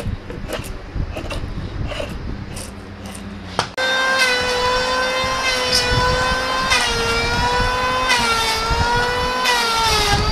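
Drawknife shaving a dry Osage orange limb in short scraping strokes, then, about four seconds in, a sudden switch to a Porter-Cable belt sander running on the wood. Its motor gives a steady high whine that dips in pitch and recovers several times as it is pressed into the work.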